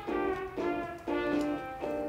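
Background music: a brass melody playing a line of short held notes, changing about every half second.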